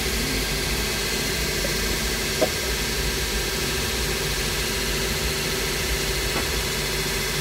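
A steady machine hum and hiss from running workshop machinery, with one sharp click about two and a half seconds in.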